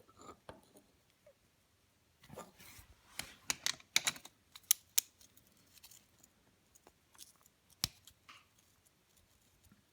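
Ratchet and socket clicking and clinking on the oil drain plug of a Honda CRF150F dirt bike: irregular sharp metal clicks, thickest from about two to five seconds in, with a few more near eight seconds.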